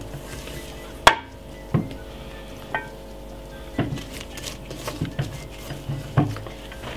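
Glass mixing bowl being handled and tipped by gloved hands, giving about eight sharp clinks and knocks, the loudest about a second in, over a faint steady hum.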